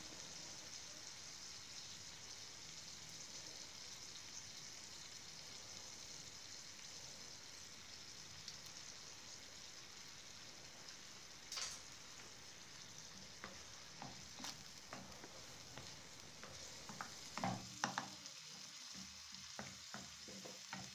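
Onions and beef frying gently in their own juices in a clay tagine, a faint steady sizzle. A wooden spoon taps and scrapes against the clay now and then, most often over the last few seconds.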